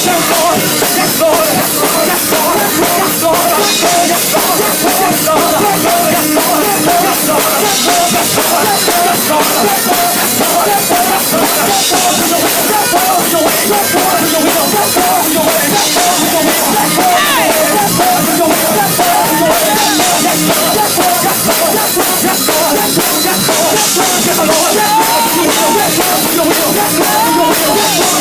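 Live gospel music with a drum kit and voices, loud and continuous, with a bright splash about every four seconds.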